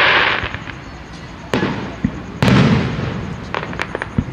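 Fireworks display: aerial shells bursting with two sharp booms, about one and a half and two and a half seconds in, each followed by a low rumble. A hissing crackle opens the moment and a few small crackles come near the end.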